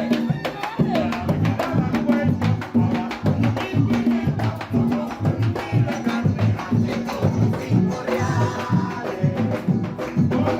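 Gaita zuliana ensemble playing, with the deep friction drum (furro) keeping a steady low beat under rattling percussion and melody, and voices singing near the end.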